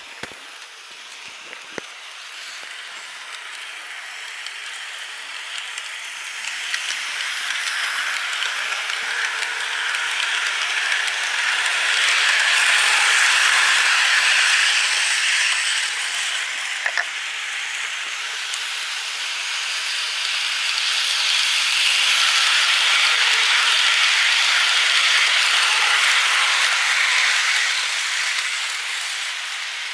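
Märklin model train running along its track, with the noise of its wheels on the rails and its motor. The noise swells twice as the train passes close, once around the middle and again in the second half.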